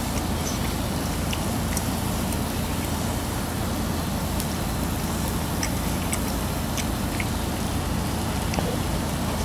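Food sizzling steadily on a hot grill plate over a low steady hum, with a few faint clicks from a spoon and chewing.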